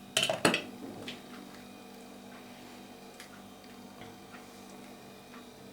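Hard small objects being handled and set down: a quick cluster of clacks in the first half second, then a few faint scattered ticks over a low steady hum.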